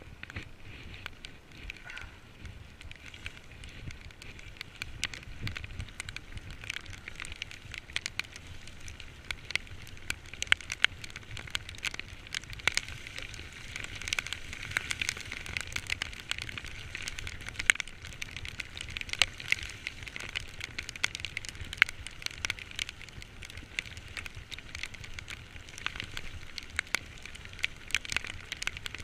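Heavy rain while cycling: a steady hiss with many irregular sharp taps of raindrops striking close to the microphone, and a low rumble underneath.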